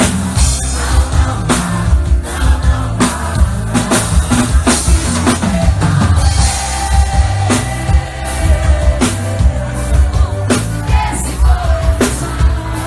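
Live forró band music played loud, with heavy bass and a steady drum beat under sustained instrument lines.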